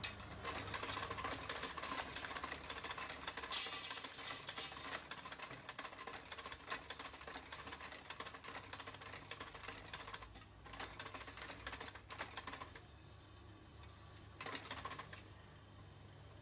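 Punch press stamping spoke holes in a steel bicycle rim: a rapid run of sharp metallic strikes over a steady motor hum. The strikes stop about two-thirds of the way through, with one short burst near the end.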